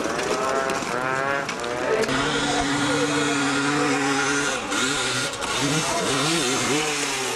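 Dirt bike engine revving hard on a steep hill climb, its pitch rising and falling at first, then holding a steady high note from about two seconds in, then wavering up and down again as the rider works the throttle.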